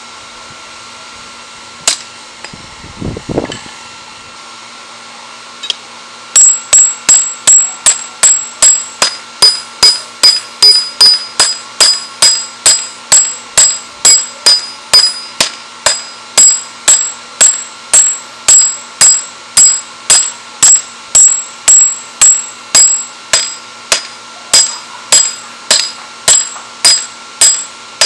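Ball-peen hammer striking a red-hot steel spearhead on a round steel block anvil: after a couple of light knocks, a steady rhythm of about two ringing blows a second begins about six seconds in. A steady hum runs underneath.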